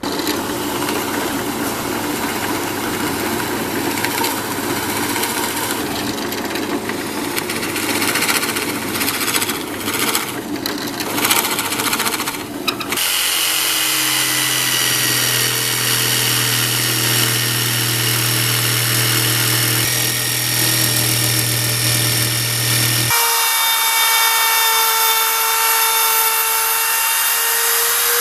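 Power tools shaping a wooden handle in cut-together clips: a loud, rough cutting noise for about the first half, then a steady motor whine that jumps to a new pitch twice.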